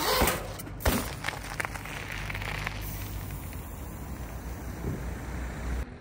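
Ride noise from a bicycle rolling on paved road: a steady rush of tyre and wind noise with two sharp knocks in the first second. The sound drops suddenly near the end.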